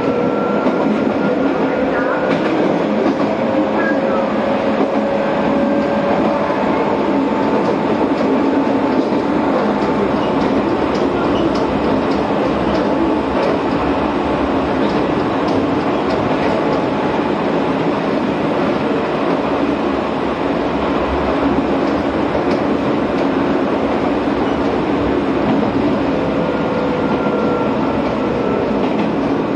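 Izu-Hakone Railway Sunzu Line electric train running along the line, heard from inside its cab: a steady rumble of wheels on rail with a faint whine that rises gently in pitch over the first several seconds. Light rail-joint ticks come through in the middle.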